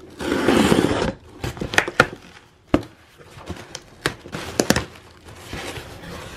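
Scissors slitting the packing tape on a cardboard shipping box, a rasping stretch in about the first second, then the cardboard flaps being worked open with scattered clicks, knocks and crinkling.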